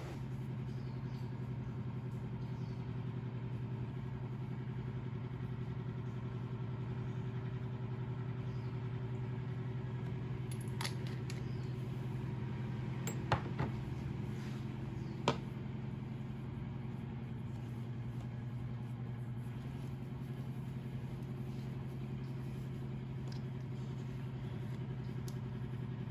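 A steady low mechanical hum, even and unchanging, with two or three sharp clicks about halfway through.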